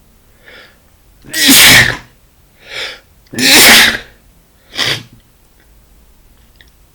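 A man with a cold sneezing twice, loudly, about two seconds apart, each sneeze after a quick breath in, followed by a brief, quieter burst about a second after the second sneeze.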